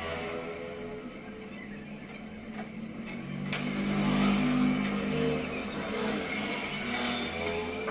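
Motor traffic passing on the street: motorcycle and scooter engines and a truck going by, swelling to its loudest about halfway through.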